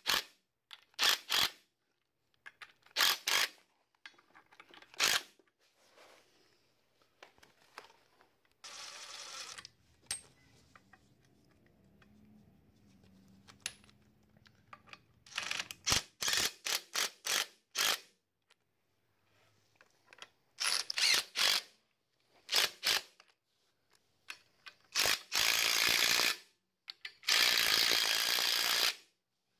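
DeWalt 20V cordless impact driver running a socket on bolts in short bursts, about a dozen, with two longer runs of about a second and a half near the end. The bolts are being worked alternately to pull new radius-arm bushings into the axle bracket until they bottom out.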